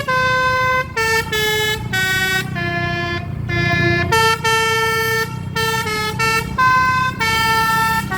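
Basuri 'telolet' multi-tone horn on a tour bus playing a quick tune: a continuous run of short pitched horn notes that step up and down every third to half second, over a steady low rumble.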